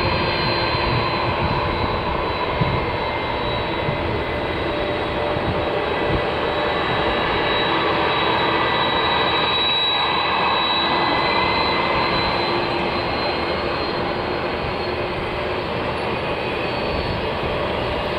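GE CF6-80E1 turbofan of an Airbus A330-300 running at taxi power: a steady jet rush with a high fan whine and a few steady lower tones.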